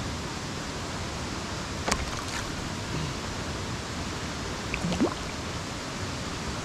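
Steady outdoor rushing noise, with a sharp click about two seconds in and a short rising squeak just before five seconds.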